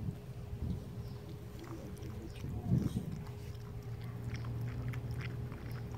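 Beagle eating grass: a run of small crunchy chewing and biting clicks, with a brief louder low thump a little before the middle. A low steady hum sits underneath.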